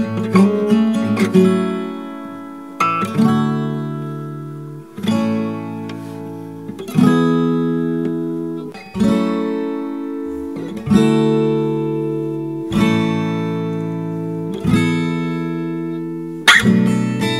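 Background music: an acoustic guitar playing slow chords, one struck about every two seconds and left to ring out.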